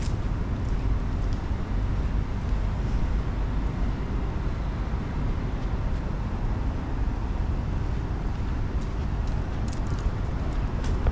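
Steady low rumble of city street noise: distant road traffic mixed with wind on the microphone.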